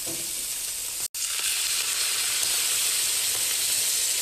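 Chicken livers sizzling steadily in hot bacon fat in a frying pan. The sound cuts out for an instant about a second in.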